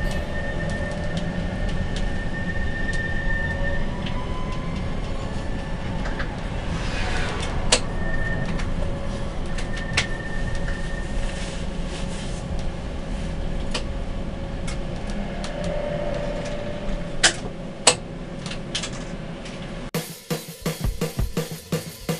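Tram running on its rails: a steady low rumble with a thin whine from the drive that comes and goes, and a few sharp clicks from the wheels over rail joints. About 20 s in it cuts to background music with a drum beat.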